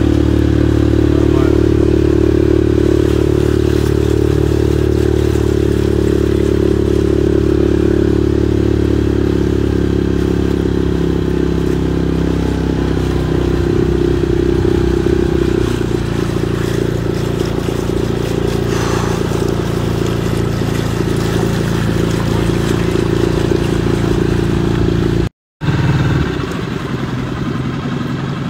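An engine running steadily, easing to a lower pitch about halfway through. Near the end it cuts out for an instant and comes back rougher.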